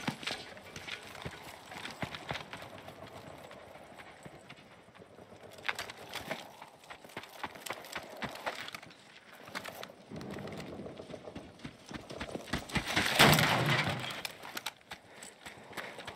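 Donkey's hooves clip-clopping on a dirt street as it pulls a cart, in an irregular run of short knocks. A little past two-thirds of the way in, a louder rushing noise swells for a second or so.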